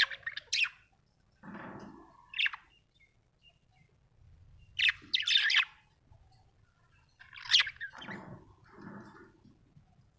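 Budgerigar chirping in short bright bursts every two to three seconds, with quieter, lower sounds in between.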